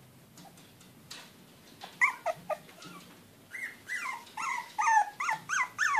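Four-week-old puppies whimpering and yipping in short, high cries that rise and fall in pitch. They begin about two seconds in and come faster toward the end, about two a second.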